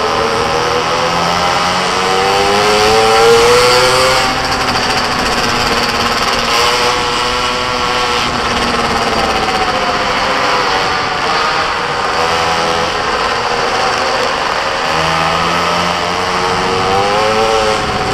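Small engine of a racing minimoto, revving up and down as it is driven through corners. The pitch climbs to a peak three to four seconds in and drops sharply, rises and falls again several times, and climbs once more near the end.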